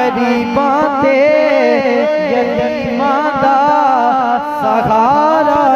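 Solo male voice singing a Punjabi naat through a microphone and loudspeaker, drawing out long ornamented melodic runs without clear words. A steady low drone holds beneath the voice.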